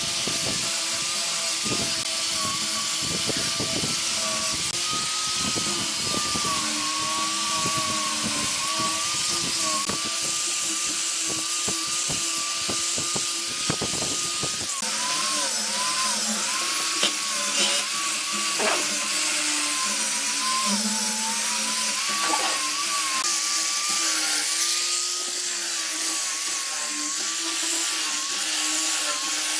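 Angle grinder fitted with a sanding pad running with a steady high whine and hiss, sanding wooden slats. In the second half its pitch repeatedly dips and recovers as the pad bears on the wood.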